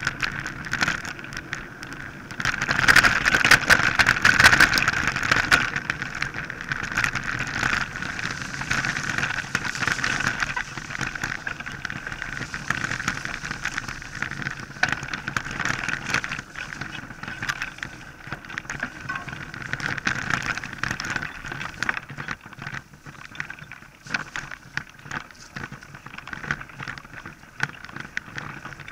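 Mountain bike riding over a rough dirt track, heard from a camera fixed to the bike: continuous rattling and knocking of the bike over the bumps, with tyre and wind noise, loudest a few seconds in.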